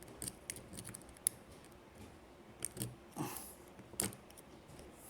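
A lock pick working the dirty pin tumblers of a vintage dual-custody padlock core: scattered small metallic clicks and scrapes, the sharpest click about four seconds in.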